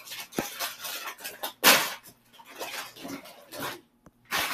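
Irregular household clatter of dishes and utensils being handled, with two louder clatters, about a second and a half in and near the end.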